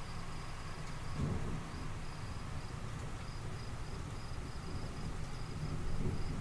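Crickets chirping steadily in a night chorus, over a low rumble that swells briefly about a second in and again near the end.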